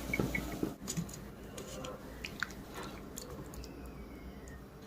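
Someone chewing food, with scattered small clicks and mouth sounds.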